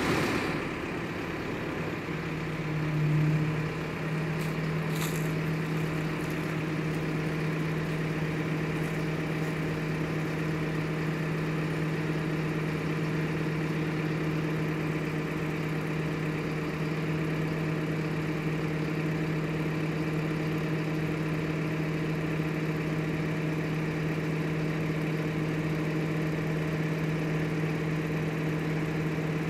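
A crane's engine running steadily at constant speed while it holds and lowers a heavy load, with a brief swell about three seconds in.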